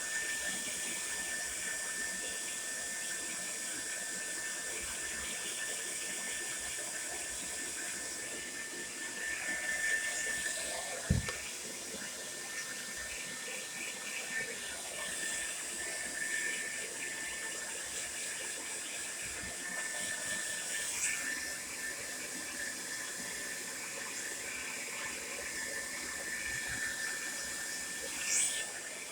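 TRESemmé Salon Smooth Professional hair dryer running steadily: a rushing airflow with a thin, steady whine. A brief knock about eleven seconds in.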